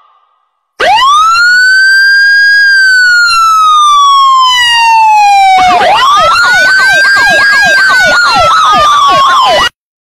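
Electronic siren starting about a second in: one long wail that rises and then slowly falls, followed by a fast repeating yelp over a second wail, cutting off suddenly near the end.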